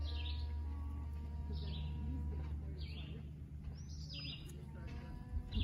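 A bird calling repeatedly outdoors: short, high, falling chirps about once every second and a half. A faint steady hum and a low rumble lie underneath.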